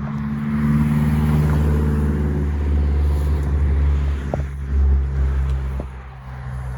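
A motor vehicle's engine running steadily close by, fading near the end, with a couple of faint sharp pops.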